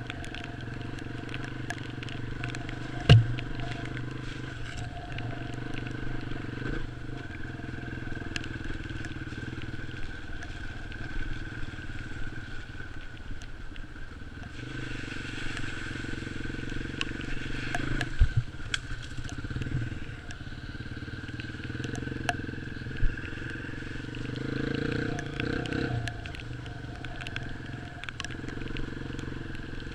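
Off-road motorcycle engine running steadily while riding a bumpy dirt track, its note rising and falling a little. A few sharp knocks, the loudest about three seconds in, others later on.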